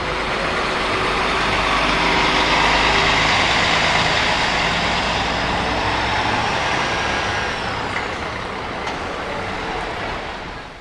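Large tour coach driving off close by, its diesel engine running under a loud rush of noise. It is loudest a few seconds in and fades as the coach moves away down the street.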